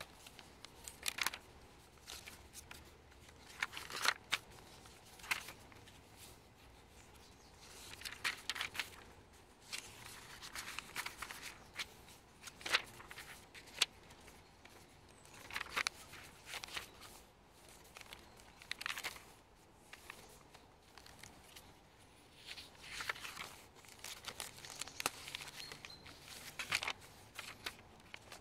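Pages of a handmade junk journal of old paper, card and book pages being turned and smoothed by hand: rustling and crinkling in irregular bursts every few seconds, with the odd sharp paper snap.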